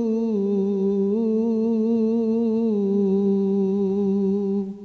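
Male singer holding one long sung note with a slight waver, on the word 'el-ghoroub', which fades out shortly before the end.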